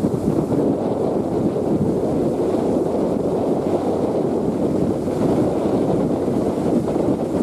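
Steady wind buffeting the microphone aboard a ferry under way, over the low rush of the ferry moving through the water.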